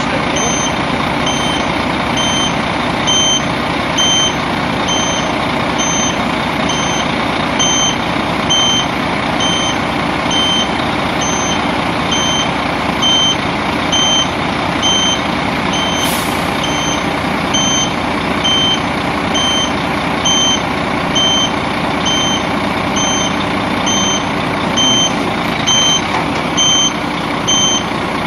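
Truck engine running steadily while the hydraulic lifting system raises the exchangeable body off the chassis, with a warning beeper sounding a short high beep about once a second. A single sharp click about halfway through.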